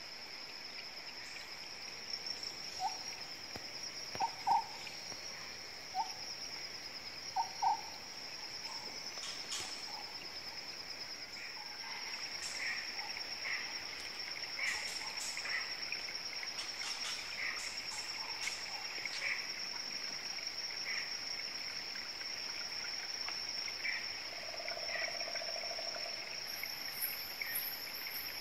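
Tropical forest ambience: a steady high-pitched insect drone throughout, other insects chirping in a slower, uneven pulse beneath it, and short animal calls, a few short notes in the first eight seconds and a brief buzzy call near the end.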